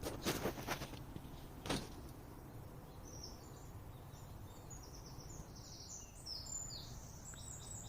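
European robin singing, a thin, high warble of short falling notes starting about three seconds in. Two brief clattering knocks come in the first two seconds.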